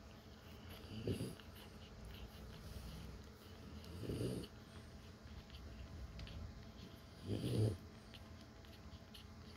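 A nursing French bulldog mother breathing slowly and heavily, three loud breaths about three seconds apart, with faint small clicks from her suckling newborn puppies in between.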